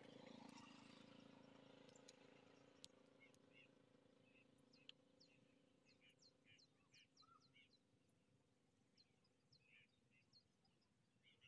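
Near silence outdoors with faint small birds chirping repeatedly in short high notes from a few seconds in, over a faint low hum that fades early on; two faint clicks.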